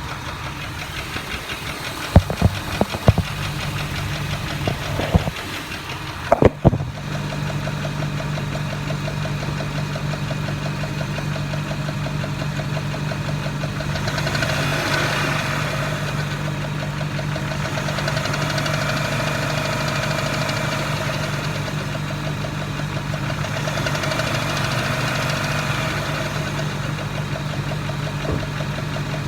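2002 Jeep Grand Cherokee Laredo engine running with a ticking sound, blipped up from idle three times, the tick getting louder with the gas; the owner cannot tell whether it is an exhaust leak, rod knock or lifter tick. A few sharp knocks in the first several seconds.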